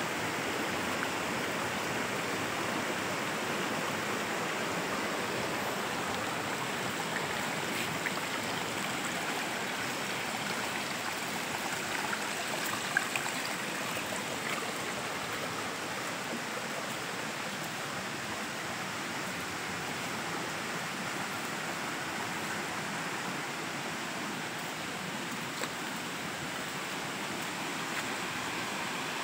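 Steady rushing of water, such as heavy rain or fast runoff, with a few faint ticks scattered through it.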